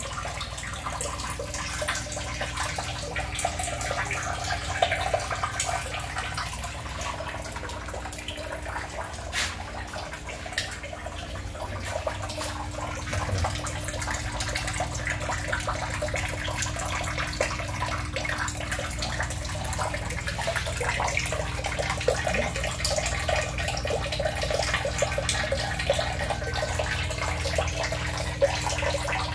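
Water running and splashing in a tiled fry tank, with many small crackles and drips over a steady low hum.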